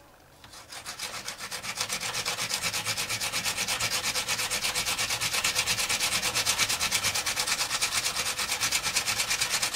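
Carbon brush rubbed by hand back and forth on the abrasive face of a grinding disc, bevelling its corners to shape. Quick, even scraping strokes, about six or seven a second, building up over the first two seconds and stopping suddenly near the end.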